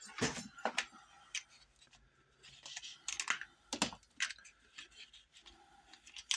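Irregular light clicks and taps of small hard objects being handled, as a diamond file is picked out to be shown.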